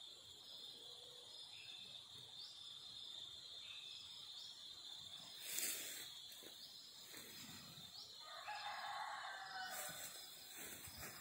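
Steady high insect drone with a rooster crowing faintly once, about eight seconds in. Two brief bursts of noise, near the middle and near the end.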